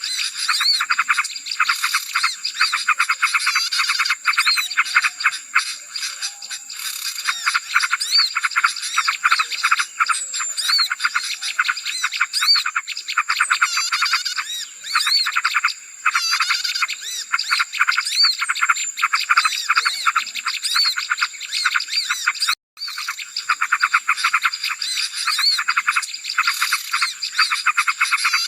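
A dense chorus of many small songbirds chattering and chirping rapidly, with short high whistles, as in a bird-lure recording for small birds. It breaks off for an instant about 23 seconds in.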